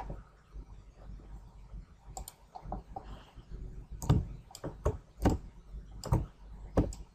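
Computer mouse clicking: about ten separate clicks at irregular spacing, the loudest from about four seconds in.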